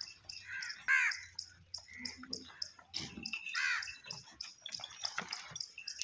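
Crows cawing: several harsh calls, the loudest about a second in and near four seconds in, over a steady run of faint high chirps.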